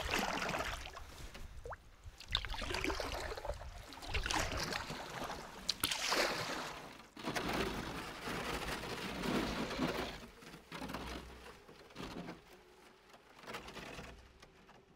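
Wenonah Escapade canoe hull and paddle breaking through thin skim ice: crackling, scraping ice and water sloshing in repeated surges with each stroke, fading near the end as the canoe reaches open water.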